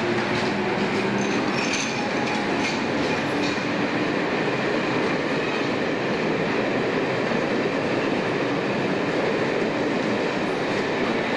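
Slam-door electric multiple unit running along a station platform: a steady rumble of wheels on the rails, with a brief high wheel squeal about two seconds in.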